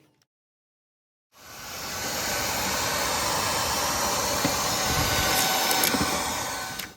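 Shark cordless pet stick vacuum running steadily, a loud rushing whine. It swells in about a second in after a moment of silence, with a few sharp clicks near the end.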